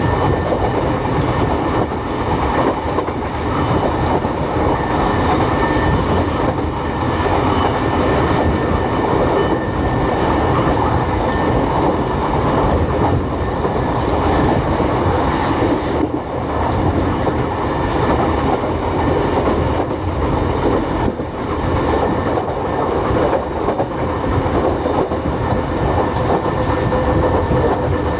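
Kotoden 3000 class car No. 300, a vintage electric railcar with nose-suspended traction motors, coasting with the power off: a steady rumble and clatter of its wheels and running gear on the track. Near the end the air brake is applied.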